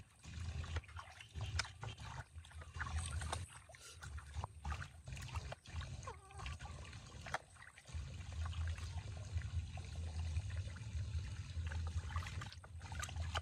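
Water sloshing and trickling in a plastic basin as hands swish it over and around a baby monkey being bathed, with irregular small splashes. A low steady rumble runs under it in the second half.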